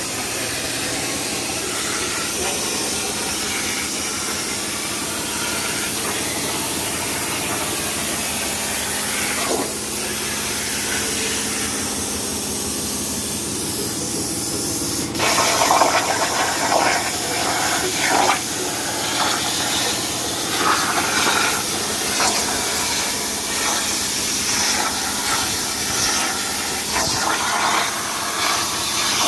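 CNC plasma cutter's torch cutting sheet steel with a steady hiss of arc and cutting air. About halfway through, after a few seconds with the arc off, it starts again with a sudden louder, rougher hiss and cuts on.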